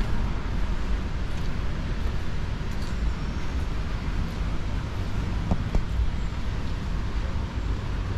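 Outdoor street ambience: steady traffic noise with a deep rumble underneath and a few faint ticks.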